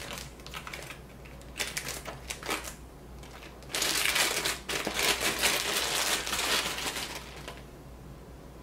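Clear plastic wrapping bag crinkling and rustling as a star diagonal is unwrapped by hand. A few scattered crackles come first, then a louder, denser stretch of crinkling from about four to seven and a half seconds in, which dies away near the end.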